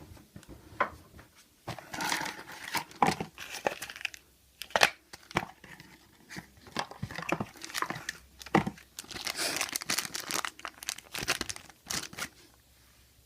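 Toy packaging being opened and handled: irregular crinkling and tearing of wrapping, broken up by sharp clicks and light knocks of plastic parts.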